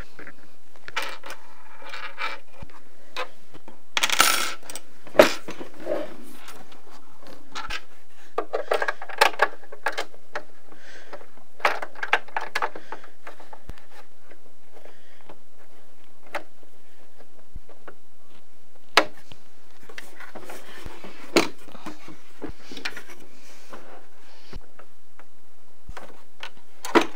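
Small metal clicks, taps and scrapes of M5 screws being started and turned with a hex key into the base of a 3D printer, scattered through with short pauses. The longest scrape comes about four seconds in, and a few single sharp clicks follow later.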